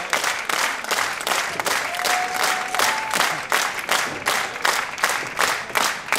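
Audience clapping in rhythmic unison, about four claps a second, steady throughout.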